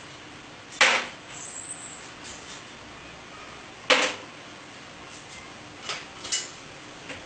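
Sharp knocks from chenda work on a metal tensioning frame: two loud ones about three seconds apart, then two fainter ones near the end.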